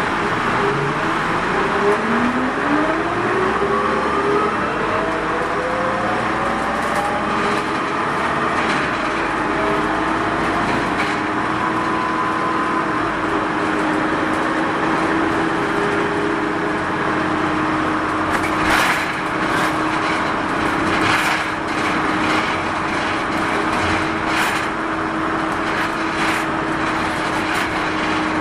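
On-board running sound of a Mitsubishi Fuso Rosa diesel minibus: the engine and drivetrain whine rises in pitch as the bus accelerates over the first several seconds, then settles to a steady tone as it cruises. Several sharp knocks and rattles from the body come about two thirds of the way through.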